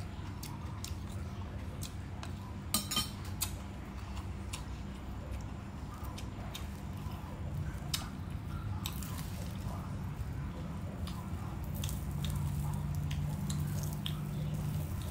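A metal spoon clinks a few times against a ceramic bowl about three seconds in. This is followed by small ticks, crackles and drips as bunches of water chive stems are handled and dipped into a bowl of sauce. A steady low hum runs underneath and grows a little louder near the end.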